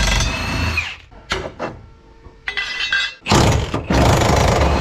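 Milwaukee cordless impact wrench hammering on the rear subframe bolts in two bursts: one through the first second that winds down with a short falling whine, and a longer one from a little over three seconds in to the end, with a few light metal clinks between them.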